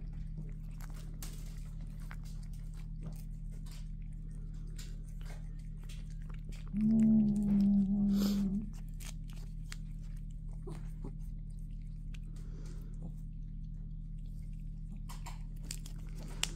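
Cats licking a lickable paste treat from a squeezed tube: a run of small licking and smacking clicks over a steady low hum. About seven seconds in, a louder sound of even pitch is held for nearly two seconds.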